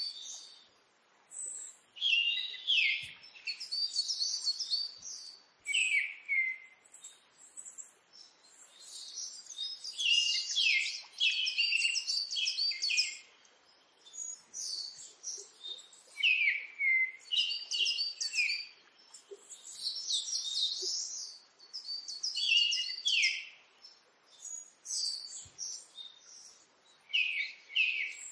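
Small bird chirping and twittering in short runs of quick, high notes, one run after another with brief gaps.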